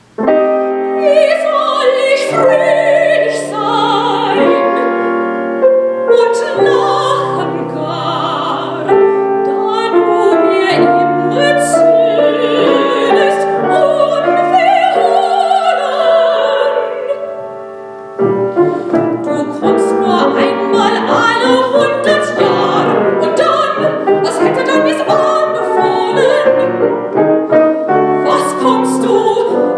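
Soprano singing classical art song with grand piano accompaniment. About two-thirds of the way through, the music dies away briefly and then starts again suddenly.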